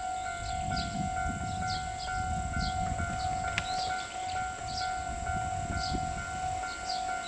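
Japanese railway level-crossing warning alarm ringing in a fast, evenly repeating pattern, with a low rumble that swells and fades through the middle.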